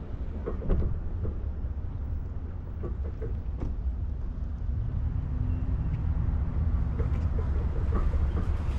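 Steady low road rumble and wind noise picked up by a GoPro on the back of a boat being towed on its trailer, with scattered light knocks and rattles. It grows slightly louder about halfway through.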